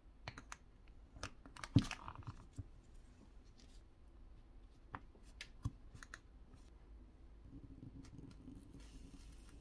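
Scattered small clicks and taps of a suction cup and a plastic pry pick being worked against a phone's plastic back cover, with the sharpest knock about two seconds in and a few more clicks around the middle.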